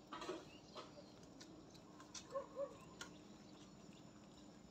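Quiet outdoor ambience with a few faint clicks and, near the middle, two short soft chirping animal calls in quick succession.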